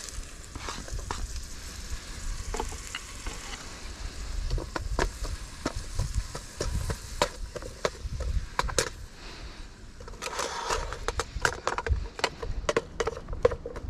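Diced red onion sizzling in hot olive oil in a camping pan on a Trangia spirit stove, with a wooden spatula scraping and tapping through the pan. A steady hiss runs under frequent clicks, which grow busier near the end.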